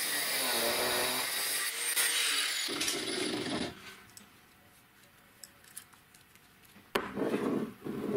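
Angle grinder with an abrasive cutoff disc cutting through a small steel rod, a steady grinding whine that stops about three and a half seconds in. After a quiet pause with a couple of faint clicks, a sharp click about a second before the end sets off another loud rumble.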